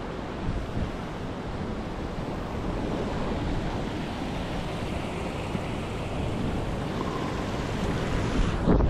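Steady rushing of creek water over a waterfall and rapids. A brief thump comes near the end.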